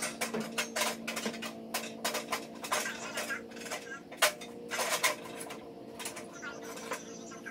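Steel aerator parts clinking and knocking against each other and the workbench as they are handled during assembly, in quick irregular taps with one louder knock about four seconds in. A steady low hum runs underneath.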